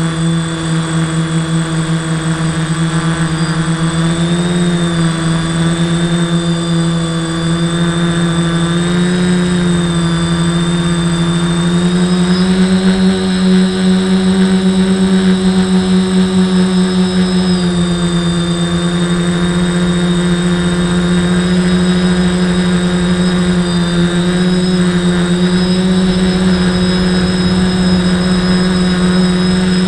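The electric motors and propellers of a custom-built quadcopter running in flight, picked up by the camera on its frame. A steady buzz with a thin high whine above it; the pitch shifts with the throttle, rising about 12 seconds in and dropping back near 18 seconds.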